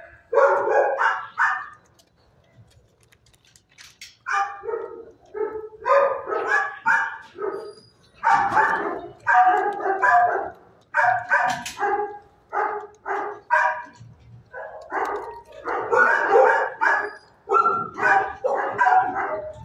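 Shelter dogs barking in quick runs of barks, with a pause of about two seconds near the start.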